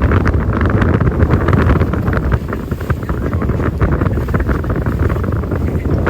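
Strong wind, around 11 m/s, buffeting the microphone: a loud, gusty low rush with no let-up.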